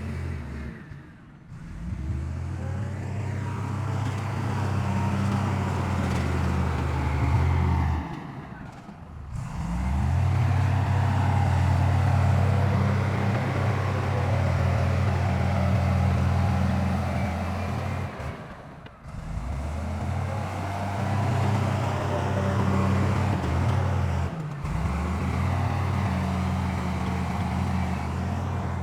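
Heavy diesel earthmoving machinery running steadily with a low engine drone, the sound breaking off briefly four times and picking up again.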